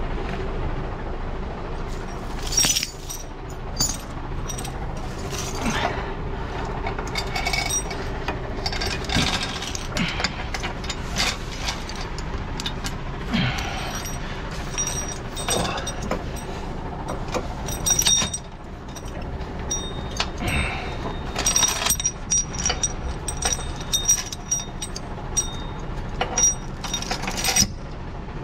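Steel lifting chain clinking and rattling in irregular, sharp clinks as it is threaded around a lorry's anti-roll bar and the underlift fork and fastened with grab hooks, over a steady low engine hum.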